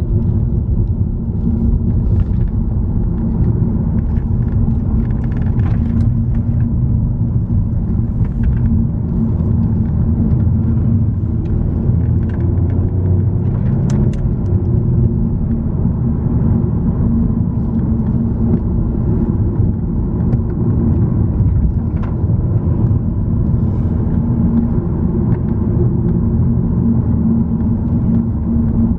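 Car engine and tyre noise heard from inside a moving car: a steady low drone and rumble at an even cruising speed.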